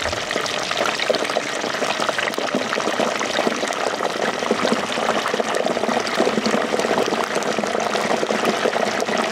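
Potatoes deep-frying in a pot of hot peanut oil: a steady, dense crackling sizzle of bubbling oil as the freshly added potatoes give off their moisture.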